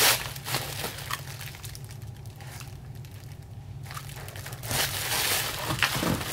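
Crinkling of a crumpled foil insulated packing liner being handled. There are crackly bursts at the start and again for the last second and a half, with a quieter stretch between.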